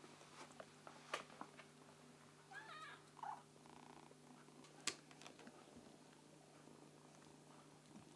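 Faint sounds of a tabby kitten playing with a string toy at a sisal scratching post: light taps and two sharp clicks, about one and five seconds in, and a short wavering squeak about three seconds in.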